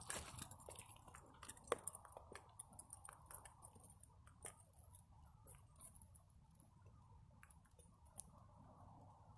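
Faint footsteps crunching through dry fallen leaves, a scatter of small crackles that grow fainter as the walker moves away.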